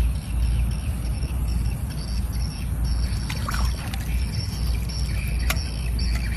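Low wind rumble on the microphone, with insects chirping steadily in the background and a couple of faint clicks near the end.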